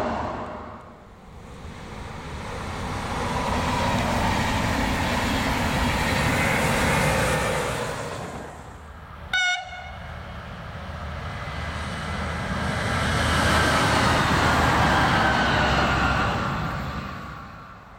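Trains passing on the line: one train's rumble swells and fades, then a short, sharp horn toot about nine seconds in, then another passing train swells and fades with a faint tone sliding down in pitch as it goes by.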